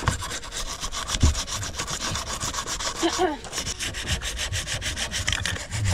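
A wipe scrubbing hard surfaces inside a truck cab: fast, even back-and-forth rubbing strokes, with a low thump about a second in.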